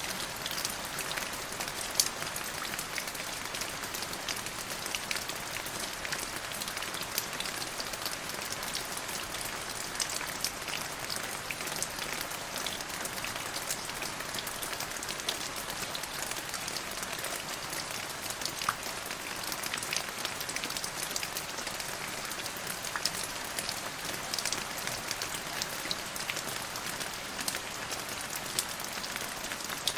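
Steady rain falling: an even hiss dotted with many sharp individual drop ticks.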